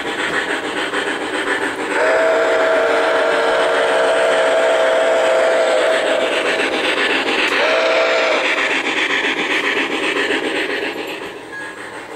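Model steam locomotive's sound system blowing a chime whistle of several notes, one long blast and then a short one, over a steady rushing of steam and running noise.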